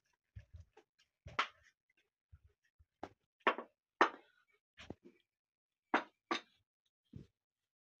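Plates being set down one after another on a low table: a string of short knocks and clatters, about ten in all, with quiet between them.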